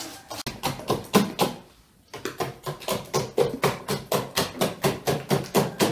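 Wire hand whisk beating eggs in a stainless steel bowl: quick, regular strokes clattering against the metal, about five a second, with a short pause about one and a half seconds in.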